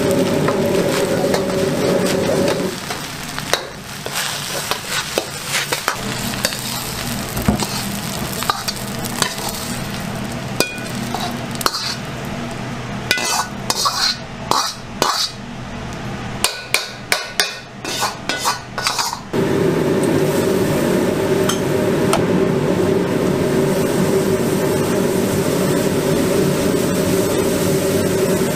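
Metal ladle stirring and scraping fried rice in a wok, with sizzling, over a gas wok burner. The burner's steady roar drops away about three seconds in, leaving the scraping and then a quick run of sharp ladle clanks against the wok. The roar comes back on loud about 19 seconds in and holds.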